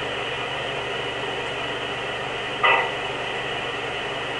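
One short, muffled vocal noise from a sleeper, about two-thirds of the way in, over a steady background hiss.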